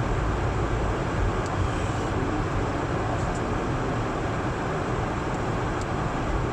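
Steady road and engine noise inside a car's cabin as it is driven along.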